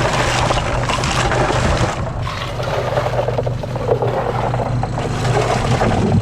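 An engine running steadily, with a continuous clatter of rattling and scraping over it.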